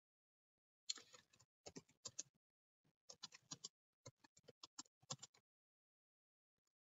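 Computer keyboard typing: quick runs of key clicks as a line of text is typed, starting about a second in and stopping a little before the end.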